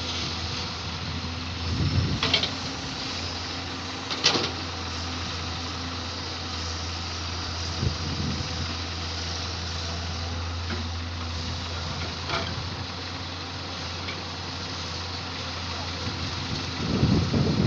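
Samsung excavator's diesel engine running steadily with a low hum, with a few sharp knocks and clanks from the machine at work, getting louder near the end.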